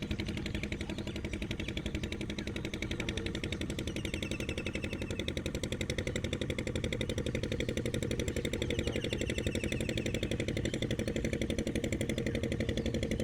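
A small engine running steadily, with a rapid, even beat.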